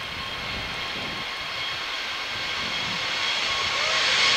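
Turbofan engines of an Airbus A321neo running as the airliner rolls along the runway: a steady jet roar with high, steady whine tones, growing louder as the aircraft draws close.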